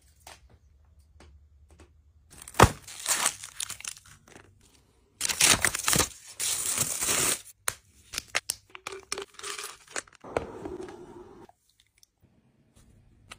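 Foil wrapping on chocolate bars being torn open and crinkled, in several loud crackling bursts.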